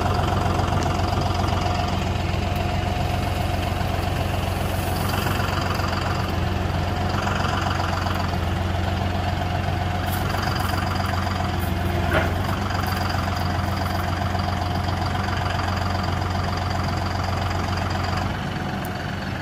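John Deere utility tractor's diesel engine running steadily as its front loader lifts a large sweeper brush. The steady hum eases slightly near the end.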